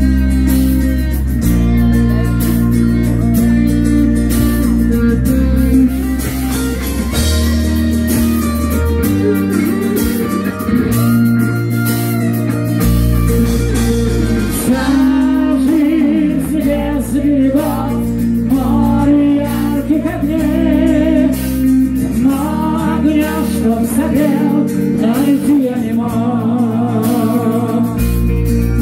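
Rock band playing live, loud, with bass guitar, drums and guitars. A male lead voice comes in singing about halfway through.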